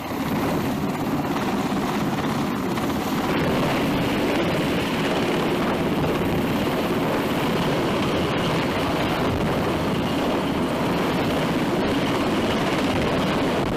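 MH-60 Sea Hawk helicopter hovering low over the deck, its turbines and main rotor running in a steady, loud, dense whoosh with a fine beat from the blades.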